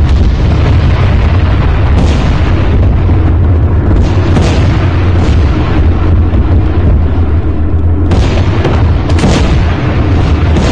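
Battlefield noise: a loud, continuous heavy rumble with several sharp booms or shots breaking through it at uneven intervals.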